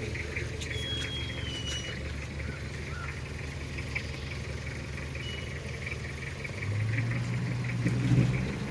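A 4x4's engine running at low revs, steady and low, then picking up and running louder for the last couple of seconds as it is put under more throttle.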